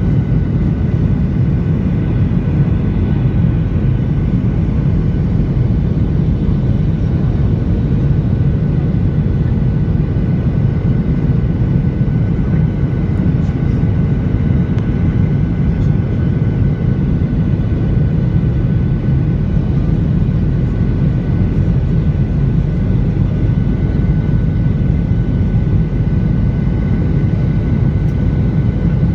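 Jet airliner cabin noise in flight: a steady, loud low roar of engines and airflow, with a few faint steady whining tones above it.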